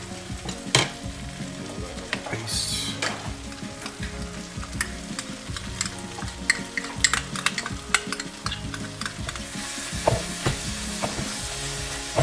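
A wooden spatula stirring and scraping fried hilsa fish heads through onion and masala in a nonstick pot, with sharp clicks of the spatula against the pot over a frying sizzle. The sizzle flares briefly about two and a half seconds in and grows steadier and brighter near the end.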